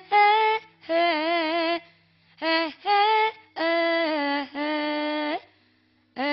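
A young woman singing a slow Javanese religious song into a microphone, in short held phrases with a wavering pitch, separated by brief pauses.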